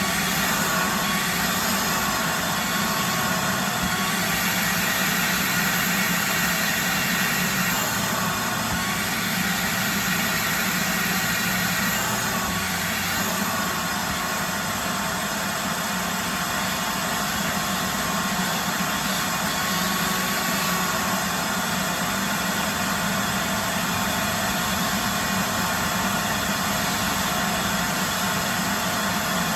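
A 4-gallon shop vac running steadily at full suction, its motor and airflow making an even, loud rushing hum with slight shifts in pitch as the nozzle is worked.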